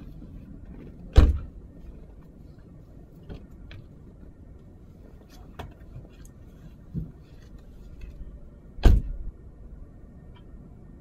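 Car doors being shut: two heavy thuds, about a second in and again near the end, with a few faint clicks and knocks between them.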